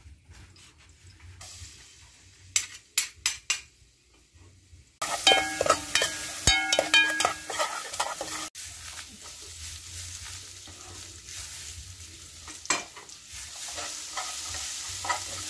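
A few sharp knocks, then from about a third of the way in a loud sizzling of minced garlic and shallots frying in oil in a metal pot. A metal ladle scrapes around the pot as it stirs.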